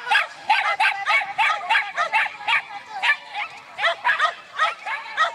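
Small dog barking rapidly and without pause, about four short yapping barks a second, as it runs an agility course.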